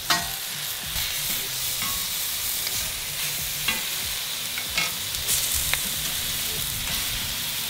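Vegetables sizzling steadily on a hot griddle plate over a ceramic kamado grill, with a handful of sharp clicks and scrapes from a metal spatula against the griddle as the pieces are flipped.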